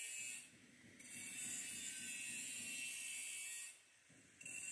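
Outdoor street ambience: a steady high hiss over a rough, rattling rumble, breaking off briefly twice, about half a second in and near the end.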